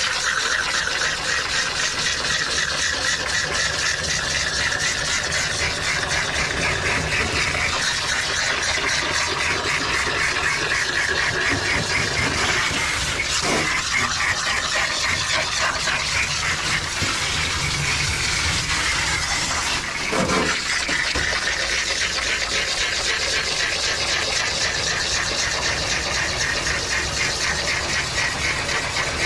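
Pet grooming vacuum running steadily, its hose and rake head sucking loose undercoat out of a Shetland sheepdog's coat, with a brief change in the airflow about twenty seconds in.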